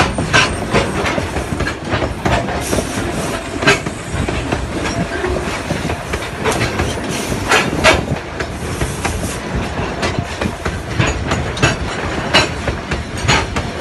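Freight wagons of a coal train rolling past close by: a steady low rumble of wheels on rail, broken by irregular sharp knocks and clacks as the wheels cross rail joints.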